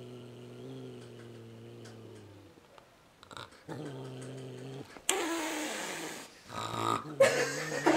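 Domestic cat growling in long, low, drawn-out grunts, the sign of a nervous cat; from about five seconds in the growls turn louder and harsher.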